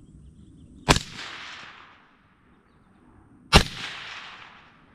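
Scoped rifle fired twice, about two and a half seconds apart, each sharp shot trailing off in about a second of echo down the range.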